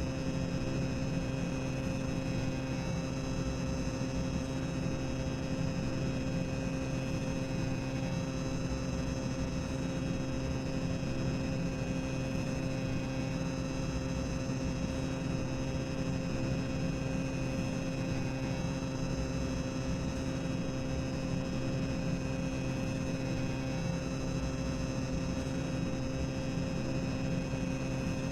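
Boiler-room ambience sound effect: a steady low machinery rumble with a constant hum and a few steady tones over it, unchanging throughout.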